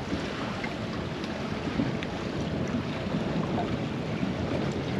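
Steady wind noise on the microphone, with waves lapping against a small fishing boat's hull on open sea.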